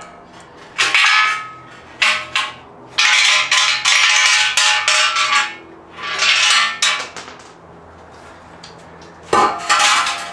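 Metal clanging and scraping in several loud bursts, each with a short ringing tail, as a stamped metal skid plate and hand tools are handled and set down on concrete.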